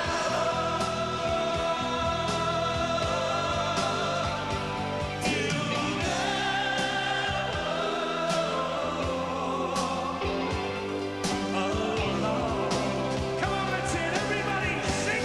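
Live pop band performance: a lead singer and many voices singing a slow anthem together over the band, with drums and cymbal crashes.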